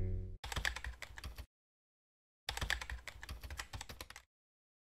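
Keyboard typing sound effect: two quick runs of key clicks, the first about a second long and the second nearly two seconds long, with a short silent gap between. A low held tone cuts off just before the first run.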